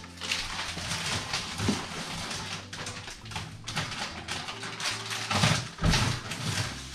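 Groceries being loaded into a refrigerator's top freezer: plastic bags and packaging rustling and crinkling, with a couple of heavier knocks about five and a half seconds in as items are set down.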